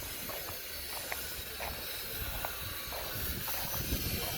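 Steady hiss of outdoor background noise with a low rumble and a few faint, scattered clicks.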